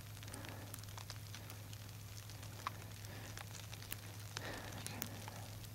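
Faint, quiet ambience: scattered light ticks over a low steady hum.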